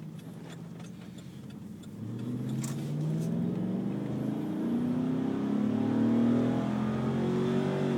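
2008 GMC 1500's 6.0-litre Vortec Max V8 running on compressed natural gas, heard from inside the cab: it runs at low revs, then about two seconds in it is floored and the revs climb steadily past 4,000 rpm. It pulls cleanly with no chugging, misfiring or bogging down, the sign of correctly sized CNG injectors keeping it fuelled on pure gas.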